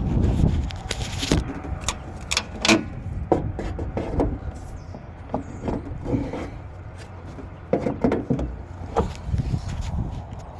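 Irregular scuffs and knocks of footsteps and handling noise while walking around a parked car, over a low rumble.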